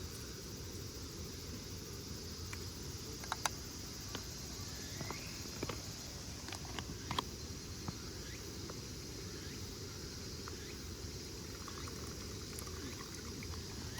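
Steady outdoor ambience with a high, even insect drone, broken by a few light clicks and taps about three, five and a half, and seven seconds in.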